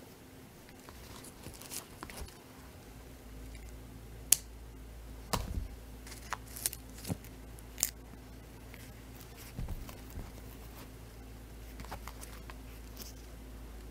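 Hands handling a small wallet and its tissue-paper stuffing: scattered sharp clicks and taps with soft rubbing and paper rustle, the loudest click about four seconds in and a cluster of clicks a second or two later.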